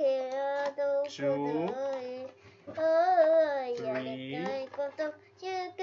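A young girl singing a tune, holding and sliding between notes in phrases with short breaks.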